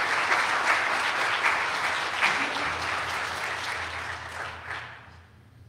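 Church congregation applauding, many hands clapping, fading out shortly before the end.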